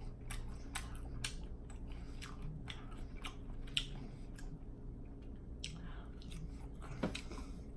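A person chewing food with open-mouthed lip smacking: a string of short wet smacks at an irregular pace, roughly two a second, with a brief sparser stretch in the middle.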